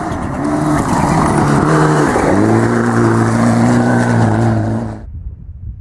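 Turbocharged Mitsubishi Lancer Evolution X rally car engine at full throttle on a gravel stage. The engine note climbs, drops sharply about two seconds in as it changes gear, then holds high and steady. About five seconds in the sound cuts off suddenly, leaving only a quieter outdoor noise.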